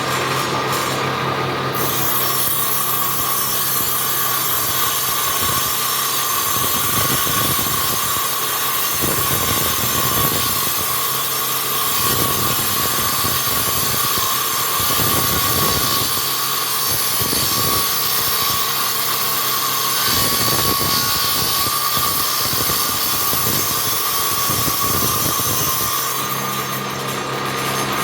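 An electric power tool running steadily with a constant whine while working wood. The contact sound comes and goes unevenly through the middle as the wood is worked.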